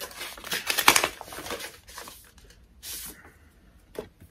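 Paper rustling as an envelope is opened and a greeting card taken out: a cluster of rustles in the first second and a half, a shorter one about three seconds in, and a light click near the end.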